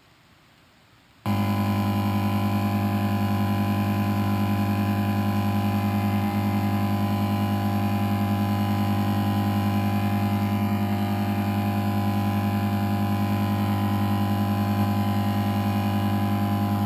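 Lightsaber hum recreated by playing a library hum through a loudspeaker and re-recording it with a microphone swung past the speaker. It cuts in abruptly about a second in and then holds steady: a low buzz with many layered tones, wavering slightly near the end.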